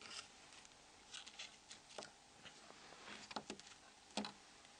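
Faint, scattered small clicks and ticks as the plastic IHF speaker cover of a Nokia N71 phone is lifted off with small hand tools. The sharpest clicks come a little past three seconds in and near the end.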